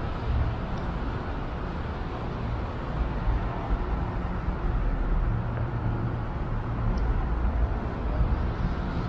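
Steady city street ambience: traffic noise with a low rumble of vehicles running by.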